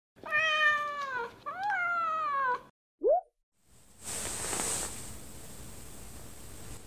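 Two cat meows, each sliding down in pitch, then a short rising pop, followed by a steady hiss of background noise, left over from noise reduction and sounding faintly like running water.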